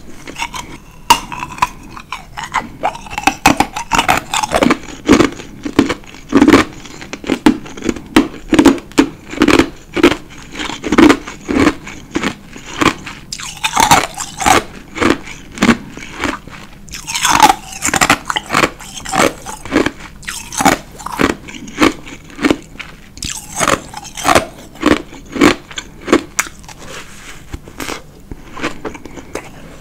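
Ice being bitten and chewed, a crunch about every half second, with a few sharper bites now and then.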